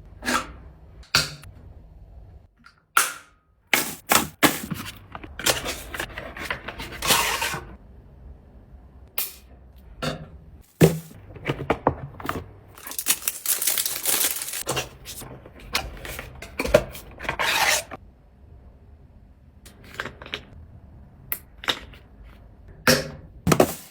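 Restock handling: a run of sharp clicks, taps and knocks as items are picked up, opened and set down, with stretches of rustling packaging in between.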